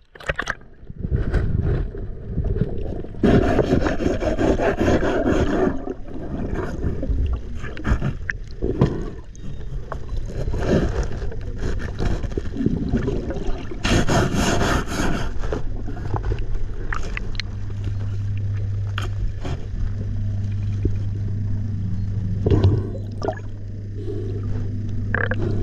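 Muffled underwater sound picked up by a submerged camera under a boat hull: gurgling, rushing bursts of water noise with scattered clicks and scrapes. From about two-thirds of the way in, a steady low hum sits underneath.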